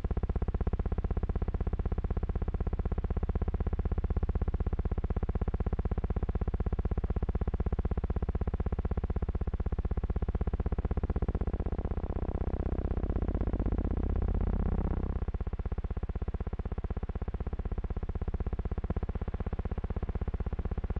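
Steady electrical hum with a buzzing edge, the noise of an archival film transfer rather than any aircraft sound. It grows louder and fuller a little past halfway, then drops back suddenly.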